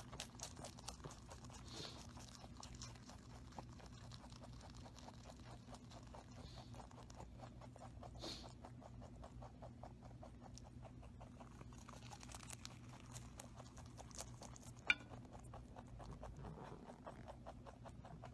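White lop-eared rabbit chewing leafy greens up close: faint, rapid crunching clicks, with one sharper click late on. A low steady hum runs underneath.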